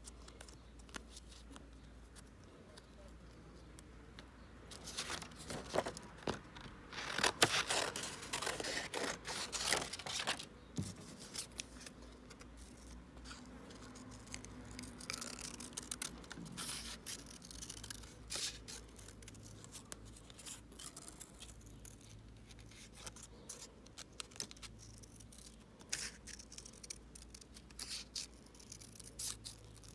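Small plastic-handled scissors snipping through thin printed card. A dense, louder run of cuts comes about five to ten seconds in, then single snips follow every second or so.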